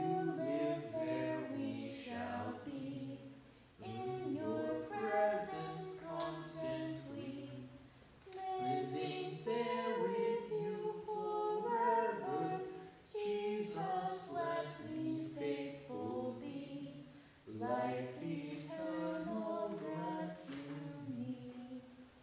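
Unaccompanied hymn singing, with no instruments. It comes in sung phrases of about four to five seconds, with short breaks for breath between them.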